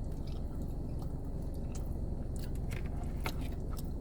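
Close mouth sounds of someone chewing chicken Alfredo pasta: scattered short wet clicks and smacks, over a steady low hum.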